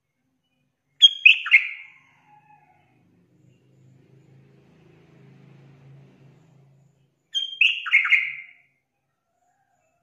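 Yellow-vented bulbul, a female calling for a male, giving two short phrases of quick notes about six seconds apart.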